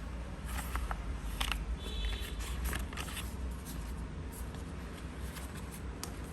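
Faint clicks and short rustles of paper being handled during paper crafting, over a steady low hum.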